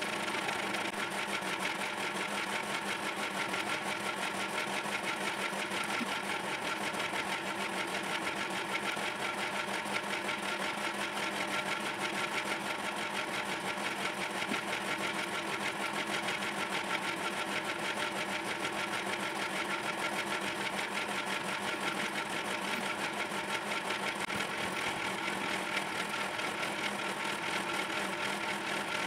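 A small electric motor running steadily: a constant mechanical hum with a fast, fine buzz that does not change.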